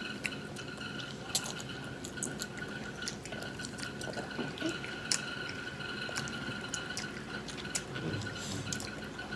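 Children slurping ramen noodles with wet, smacking mouth sounds and many short scattered clicks. A faint steady high-pitched hum runs underneath.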